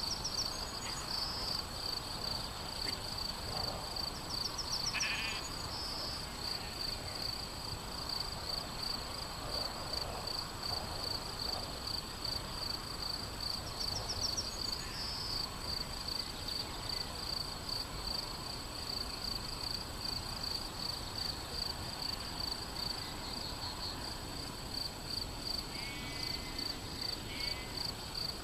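Sheep grazing in a field, with an occasional bleat, over a steady fast-pulsing chirp of insects. A few short bird calls come and go.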